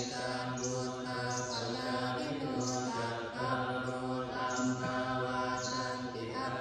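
A group of Thai Buddhist monks chanting Pali verses together in a steady, droning recitation.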